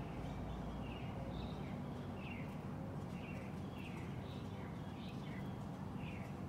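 Bird chirping: short, high, downward-sliding chirps repeated irregularly about twice a second, over a steady low hum.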